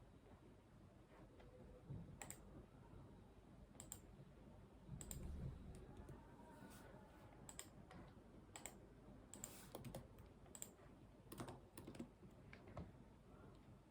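Faint, irregular computer keyboard keystrokes and mouse clicks, a few at a time with pauses between, and a soft low thump about five seconds in.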